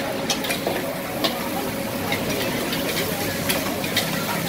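Pad thai noodles frying in a wok: a steady sizzle broken by irregular clinks and scrapes of the spatula against the wok as the cook stirs and tosses.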